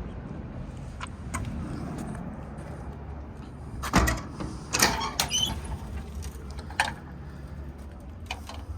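Steel service-body compartment doors being shut and latched: a series of clanks and latch clicks, the loudest about four and five seconds in, over a steady low rumble.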